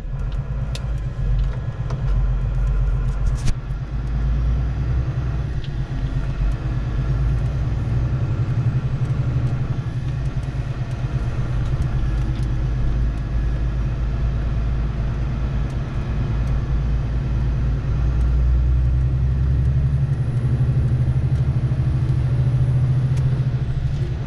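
Truck's diesel engine running under way, heard from inside the cab as a steady low drone, a little louder from about eighteen seconds in. A few faint clicks in the first few seconds.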